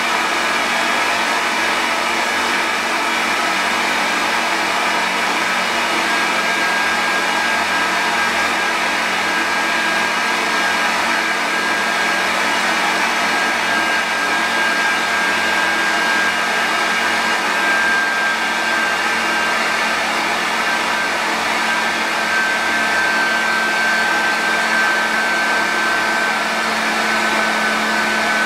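Electric fan blowing air up a holed PVC tube, a steady loud rush of air. A thin whine comes in several seconds in and sags slightly in pitch.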